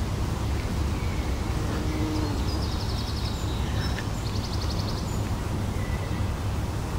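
Steady low outdoor rumble with small birds calling over it: scattered short chirps and two rapid, high trills near the middle, each lasting well under a second.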